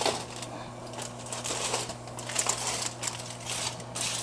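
Aluminium foil crinkling and rustling in irregular bursts as food on a foil-covered oven tray is turned, over a steady low hum.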